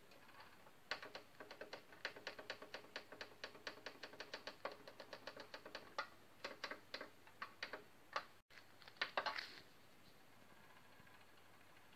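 Sharp QT-CD7 portable CD player's laser pickup mechanism clicking rapidly and unevenly, several clicks a second, as it seeks across tracks. It starts about a second in and stops near the end. The mechanism is worn and noisy, part of a fault that also makes the player skip and stutter.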